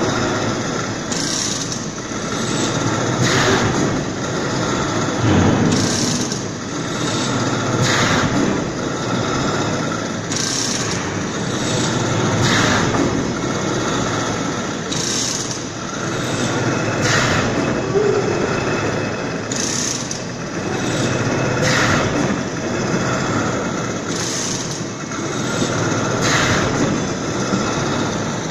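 Horizontal veneer slicer running, its flitch carriage moving back and forth past the knife over a steady machine drone. A short, sharp sound comes about every two seconds, once with each stroke.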